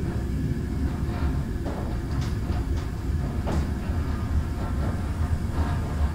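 Train running along the rails, heard from on board: a steady low rumble with a few faint clicks from the wheels about two to three and a half seconds in.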